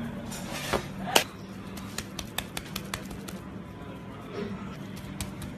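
Food-preparation sounds: a sharp knock about a second in, then a run of quick light taps, about five a second, over a steady low hum.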